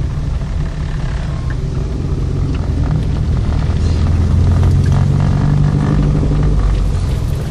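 Car engine and tyre noise heard from inside the cabin while driving: a steady low hum, a little stronger for a couple of seconds after the middle.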